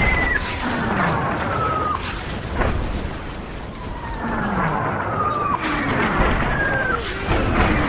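Artillery bombardment: incoming shells whistle down in falling pitch, several overlapping at once, each ending in an explosion, over a constant low rumble of blasts. Impacts land about two seconds in, shortly after, and again in the second half.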